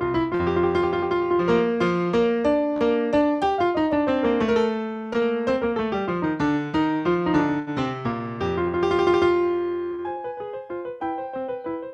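Piano playing a flowing passage of many quick notes, with runs that climb and fall; it grows a little softer near the end.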